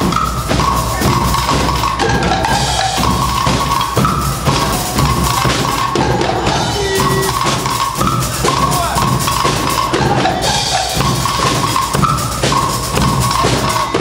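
Guggenmusik carnival band playing: brass and sousaphones holding a loud melody line over a steady beat of bass drums and other percussion.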